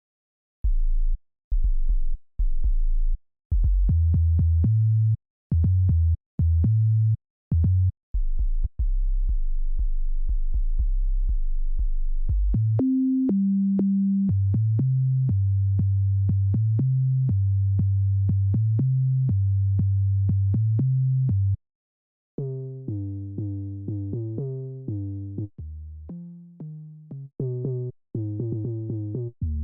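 Dembow synth bass loops played one after another. A deep sub-bass line stops and starts, then settles into a steady pattern. After a brief break about three-quarters of the way through, a brighter, plucky synth bass takes over.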